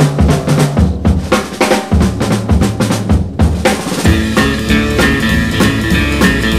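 Background music: a drum kit playing a steady, driving beat, with pitched instruments joining the drums about three and a half seconds in.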